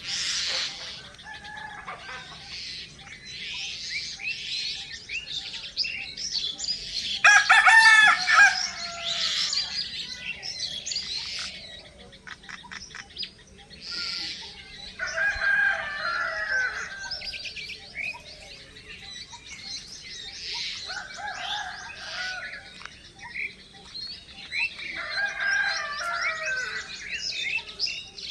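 Small birds chirping and twittering throughout, with a rooster crowing loudly about seven seconds in and further rooster or chicken calls several more times later.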